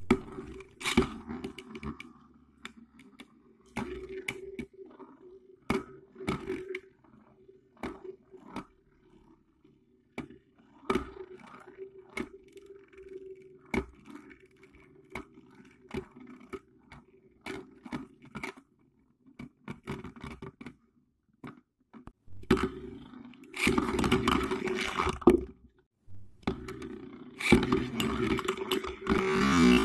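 Homemade Beyblade-style spinning tops launched into a plastic bowl stadium, spinning with a steady hum and clacking against each other and the rim in many sharp knocks. About 23 seconds in there is a louder rattling stretch, then after a short break a new pair of tops spins and knocks again.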